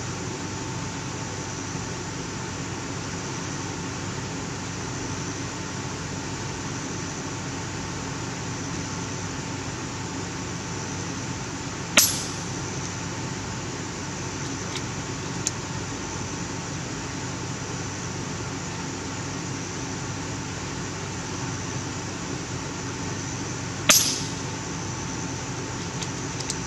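FX Impact .30 calibre PCP air rifle fired twice, about twelve seconds apart, each shot a sharp crack with a short tail. A faint click follows a few seconds after the first shot. All of it sits over steady background noise.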